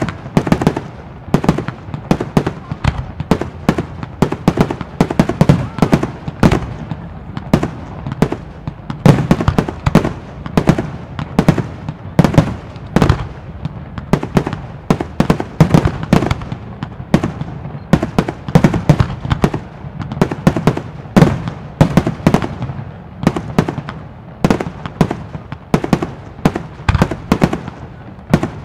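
Aerial fireworks shells bursting in a rapid, uneven barrage of about two or three sharp bangs a second, over a low rumble.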